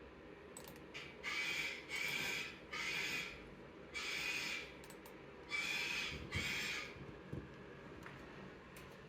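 A recorded animal call played back for a kitten: six short, harsh, hissy calls of about half a second each, in two groups of three and one and then two.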